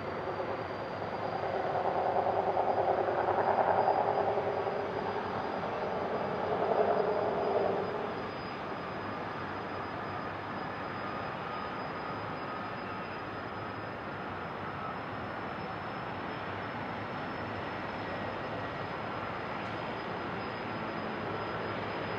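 Sikorsky S-64F Skycrane helicopter's twin turbines and rotor running, with a steady high whine throughout. A louder swell of engine and rotor noise comes from about one to eight seconds in, then settles to a steady level.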